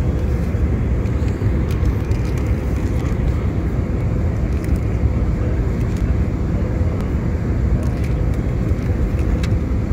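Steady cabin noise of an Airbus airliner in flight: a deep, even rush of engines and airflow with a faint steady hum. A few light crackles of a paper bag being handled come through on top.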